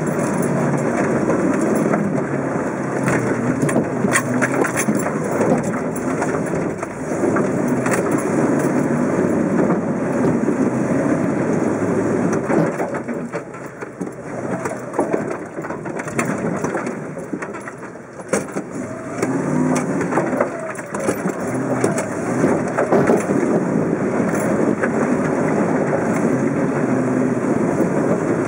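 V8 Nissan Patrol heard from inside the cabin as it crawls up a rocky off-road climb: the engine runs under load, with frequent knocks and clicks from the tyres over rocks and the body and suspension working. The sound drops for a few seconds about halfway.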